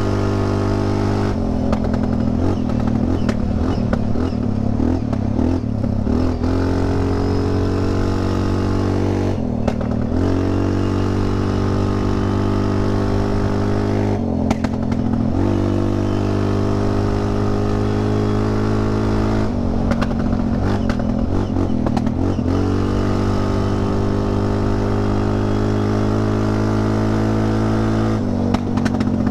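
Linhai 400S Dragonfly ATV's single-cylinder engine running loud through a cheap fake Akrapovic aftermarket exhaust while cruising on the road. The throttle is eased off and opened again several times.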